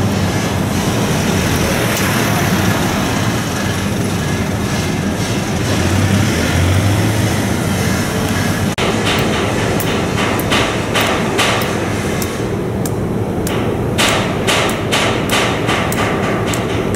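A steady wash of background noise, then, after a cut about nine seconds in, a run of sharp knocks and clanks from a worker handling the foot of a steel sliding gate across a rail track.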